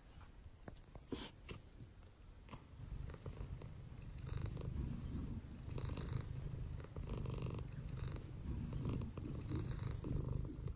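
Long-haired domestic cat purring steadily while being stroked on the head, a sign of contentment. The purring sets in about three seconds in, after a few faint clicks.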